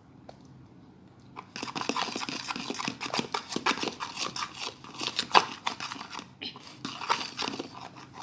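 Fork stirring glue slime in a bowl as activator is worked in: irregular sticky squishes and clicks that start about a second and a half in and keep going.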